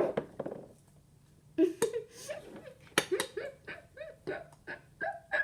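A girl giggling in a run of short bursts, starting about a second and a half in, with a couple of sharp clicks.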